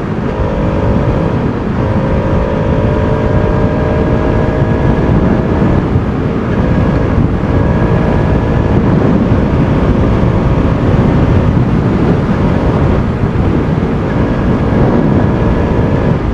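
Bajaj Pulsar RS200's single-cylinder engine running at a steady cruising speed on the road, its tone shifting slightly a few times, over a heavy rushing noise.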